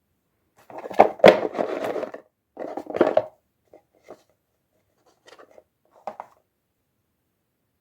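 Toy packaging being handled and opened: two bursts of scraping and rustling in the first few seconds, then a few faint clicks.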